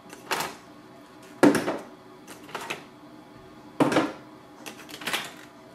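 Toner cartridges being lifted out of a Canon imageCLASS MF643Cdw's toner drawer and set down on a table: a series of about five plastic knocks and clatters, the loudest about a second and a half in.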